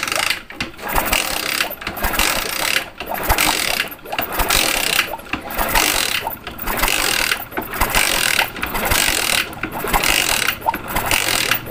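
Hero Splendor Plus single-cylinder four-stroke engine being kicked over again and again, about once a second, with the kick-start ratchet clicking; the spark plug is out of the head for a spark test, so the engine does not fire.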